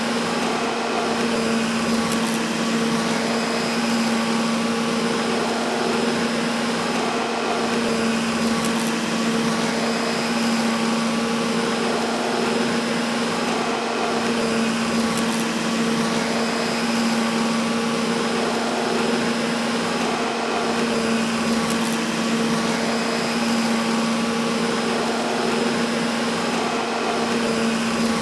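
Vacuum cleaner running steadily: a constant low motor hum under an even rush of air, with no change in speed.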